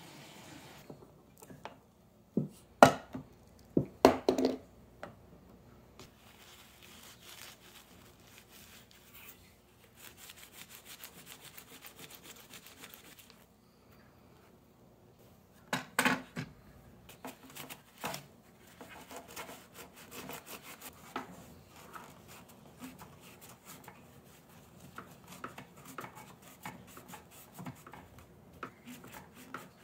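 Paper towel rubbing and scrubbing over computer circuit boards, a RAM stick and a motherboard, in quick repeated strokes. Several sharp knocks come in two clusters, a few seconds in and about halfway through.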